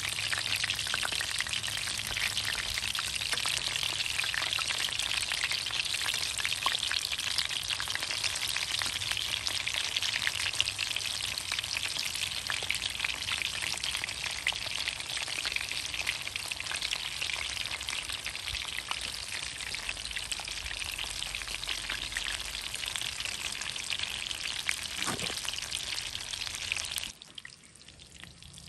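Meatballs frying in hot oil in a pan: a dense, steady sizzling crackle that cuts off abruptly near the end.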